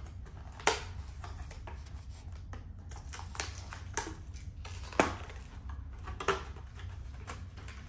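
A clear plastic packaging box being opened and handled: several sharp plastic clicks and crinkles, the loudest about five seconds in, as the box is pried open and the braces and a paper insert are pulled out.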